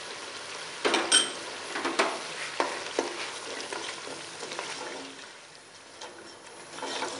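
Chicken and yogurt sizzling in a pot while being stirred with a black utensil: a steady sizzle under knocks and scrapes of the utensil against the pot. The knocks come thickest in the first three seconds and thin out after.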